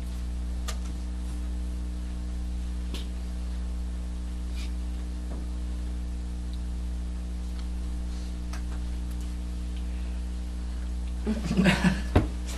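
Steady electrical mains hum with faint clicks and rustles, from hands moving while signing. Near the end comes a short burst of a man's voice with a sharp knock, the loudest moment.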